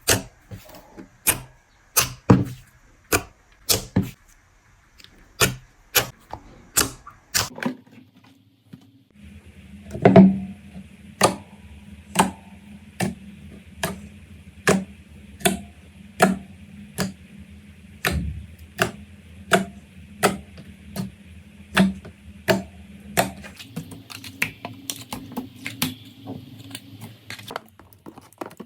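Slime being pressed and worked, giving sharp popping clicks about every half second.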